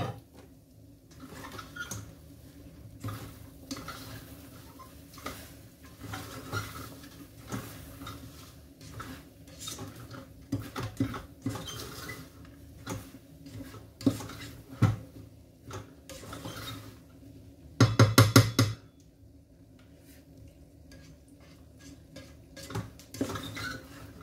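Minced pork and sweetcorn frying in a non-stick pan: scattered pops and crackles over a faint steady hum. About three quarters of the way in comes one loud burst of rapid knocks lasting about a second.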